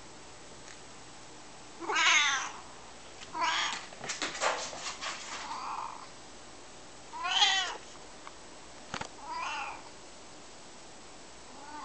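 Maine coon cat meowing several times, short calls about half a second each, the loudest about two and seven seconds in. About four seconds in there is a rapid clatter of clicks: a plastic ball bouncing on the wooden floor.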